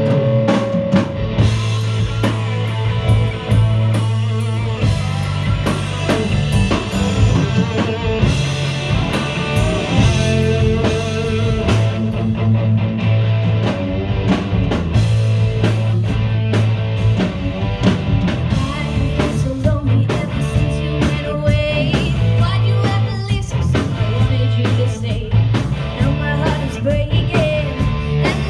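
Live rock band playing: a woman singing over electric guitars and a drum kit.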